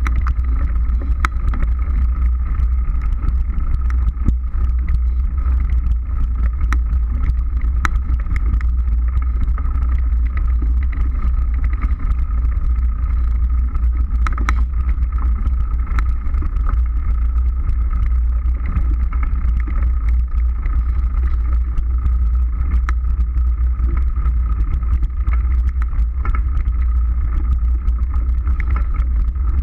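Mountain bike riding a dirt forest trail, heard through a bike- or helmet-mounted camera: a steady heavy low rumble of wind and tyre noise, with scattered clicks and rattles as the bike runs over bumps, and a steady thin whine underneath.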